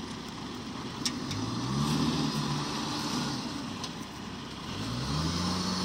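Engine of a machine pulling on a combine harvester mired in a muddy rice field, revving under load. It rises about a second and a half in, drops back near four seconds, then revs up again and holds.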